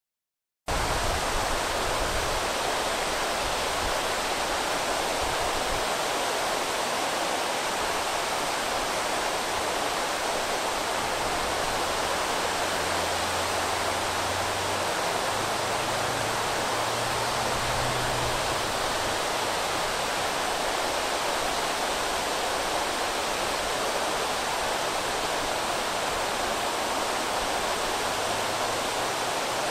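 River water pouring over a low mill dam and churning below it: a steady rush that starts about a second in.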